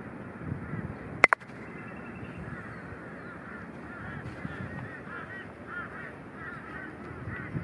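Croquet mallet hitting the ball in a stop shot about a second in: two sharp clacks close together, mallet on ball and then that ball knocking into the other ball. Birds chatter with short repeated calls throughout.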